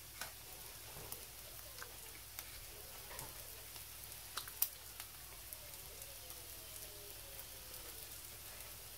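Silicone pastry brush glazing dough with beaten egg yolk and clicking against a small ceramic bowl: scattered faint ticks and taps, the sharpest about four and a half seconds in.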